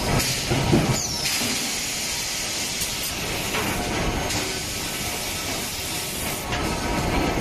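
Steady industrial machinery noise with a continuous hiss, and a short falling whine about a second in.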